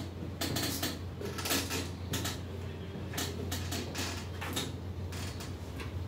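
Classroom background noise: scattered small knocks, taps and rustles at irregular intervals over a steady low hum.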